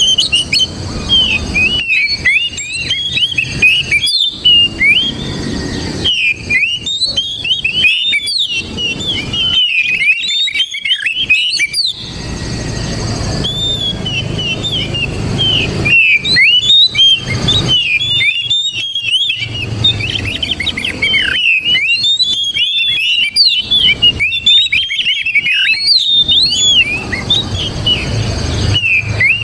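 Oriental magpie-robin (kacer) singing a fast, varied song of whistles and chirps, phrases broken by short pauses, over a low steady background rumble.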